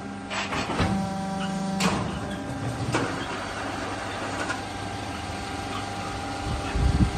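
Concrete block making machine running: a steady motor hum with several sharp metallic knocks in the first three seconds and a heavy low thud near the end.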